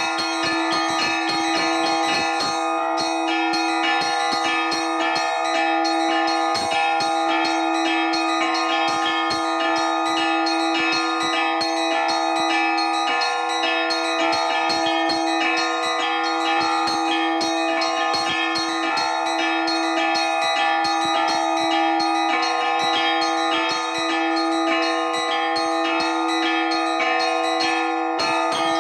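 Church bells rung by hand in an improvised Orthodox-style peal (zvon) that calls to the evening service. Many quick strikes of the smaller bells sound over the steady ring of the deeper bells, without a break.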